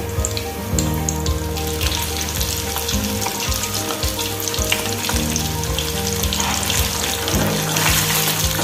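Batter-coated paneer pieces deep-frying in hot oil in a steel kadai: a steady, dense sizzle full of small crackles.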